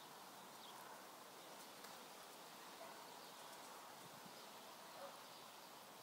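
Near silence: faint outdoor ambience.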